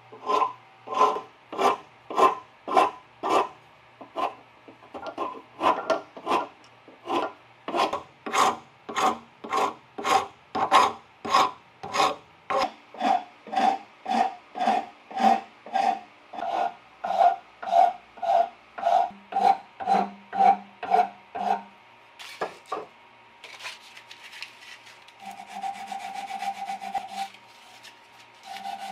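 Saw file stroking across the teeth of a handsaw clamped in a saw vise, in quick even strokes about two a second, each with a ringing screech. The strokes stop a little past two-thirds in, then resume as a few slower, longer strokes.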